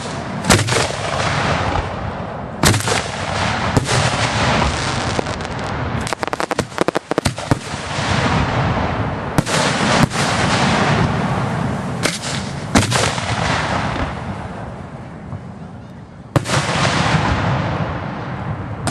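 Aerial firework shells bursting overhead in sharp, loud bangs every one to three seconds. A rapid run of crackles comes about six to seven seconds in, and a rushing hiss fills the gaps between the bangs.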